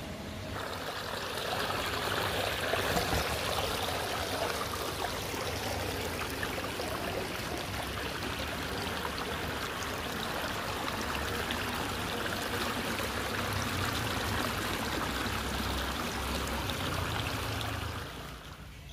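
Water of a man-made rock-lined stream running and splashing over small stone cascades, a steady rush that fades out near the end.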